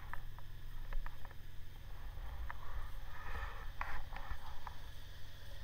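Riding noise from a touring motorcycle at speed: a steady low rumble of wind and engine on the bike-mounted camera's microphone, broken by scattered light clicks and knocks.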